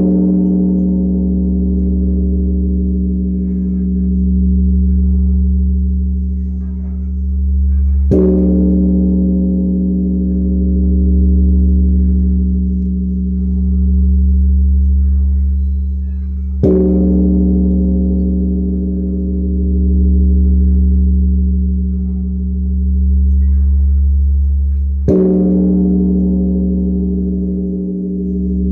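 Large Korean Buddhist temple bell (beomjong) of bronze, struck with a wooden log three times about eight and a half seconds apart. Each stroke is a dull boom followed by a long, deep ring that swells and fades in slow waves and is still sounding when the next stroke lands.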